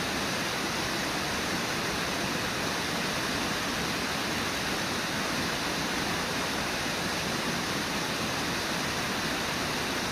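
Steady rushing of river water spilling over falls and rapids, an even roar without change.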